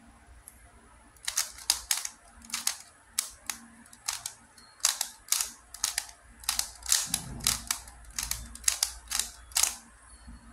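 QiYi MoFangGe Master Pyraminx being turned by hand: its plastic layers give a quick, uneven run of sharp clacks, about two to three a second, starting about a second in and stopping near the end.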